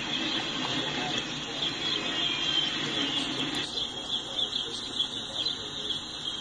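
Intermodal stack train rolling past, played through a screen's speaker, with a high wavering squeal over the rolling noise. The rolling noise cuts off suddenly a little past halfway as the stream stalls, leaving only the high squeal-like tone.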